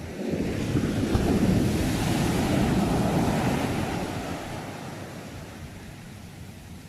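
A single ocean wave breaking and washing in: the surf noise surges up just after the start, holds for a couple of seconds, then slowly fades as the water draws back.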